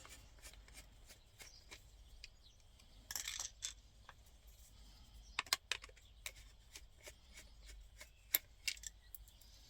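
Small screws being undone from a VW Golf Mk4's plastic interior door handle trim: scattered light clicks and ticks of the tool and parts, with a short scraping rustle about three seconds in.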